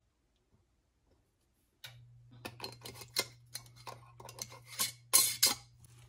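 A canning lid and metal screw band being set on and screwed down onto the threads of a glass pint mason jar: a quick run of metal-on-glass scraping and clicking that starts about two seconds in and is loudest near the end, over a steady low hum.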